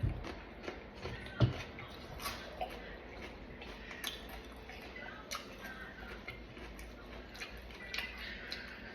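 Close-up eating sounds of a person chewing fruit: wet mouth clicks and smacks with scattered small taps, the loudest about one and a half seconds in.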